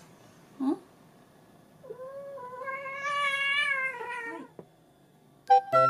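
Black-and-white domestic cat giving one long, complaining meow that rises and falls slightly; the cat seemingly wants to be put down after being held. A short low sound comes before it, and chiming music tones start near the end.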